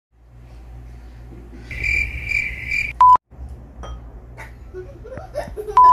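Electronic beeps: a high, pulsing beep with three pulses, then a short, loud, pure beep about three seconds in, cut off by a moment of dead silence, and a second identical beep at the very end.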